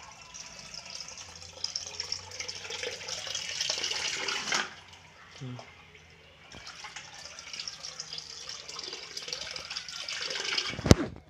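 Water running into a bucket, a steady splashing hiss that breaks off for about two seconds midway and then runs again.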